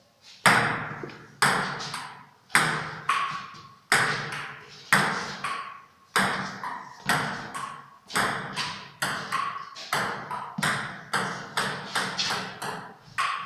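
Table tennis rally: the ping-pong ball clicking off the bats and the table, about one to two hits a second, each hit ringing on in a bare, echoing room.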